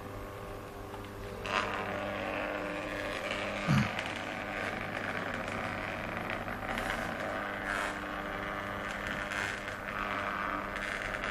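Tattoo stencil copier running after its copy button is pressed, its motor feeding the stencil paper and original through with a steady whir that starts about a second and a half in. There is one short low thump near four seconds.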